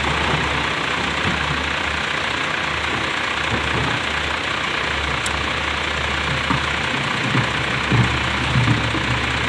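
Tata Hitachi ZX470 excavator's diesel engine running steadily, with a few low thumps near the end.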